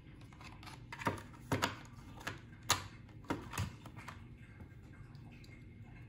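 Hollow plastic clicks and knocks from a small pink brush-and-lash washing machine and its slotted plastic basket being fitted together and handled, about eight sharp ones between one and four seconds in.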